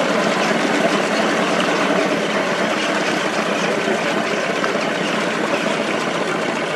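Motorboat engines idling steadily.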